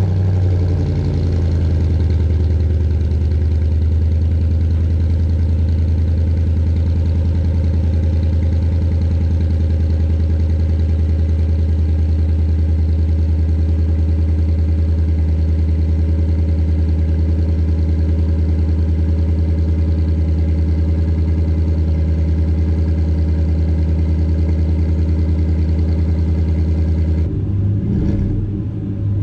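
Chevy Silverado 5.3-litre V8 idling steadily through an MBRP cat-back exhaust just after a cold start, with a deep, even exhaust note that settles in the first second or two. About two seconds before the end the sound changes abruptly to a rougher, lower engine sound.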